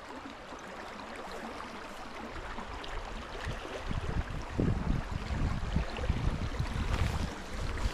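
Creek water running, a steady rushing. Low uneven rumbles grow stronger from about halfway in.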